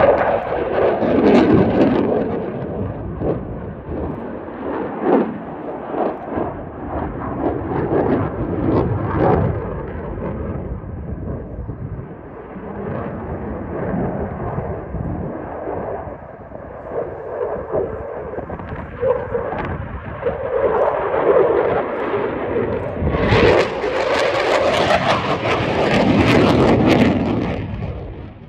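Eurofighter Typhoon's twin Eurojet EJ200 engines in a flying display: a loud, crackling jet roar that swells and fades as the aircraft manoeuvres. It surges to its loudest and harshest for the last five seconds, then falls away right at the end.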